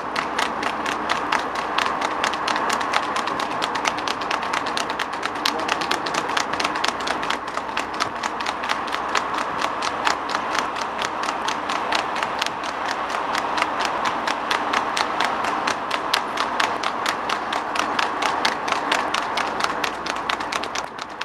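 Hooves of two harness racing horses clattering rapidly on tarmac as they pull sulkies at speed, a fast, steady, continuous beat. Steady vehicle and road noise runs underneath.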